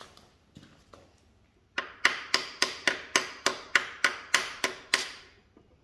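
A claw hammer taps about a dozen times in quick succession, roughly three blows a second, on locking pliers clamped to a connecting-rod cap, knocking the cap loose from its rod on a Mopar 361B V8. Each blow is a sharp metallic strike that rings briefly, after a few light clicks of the pliers being handled.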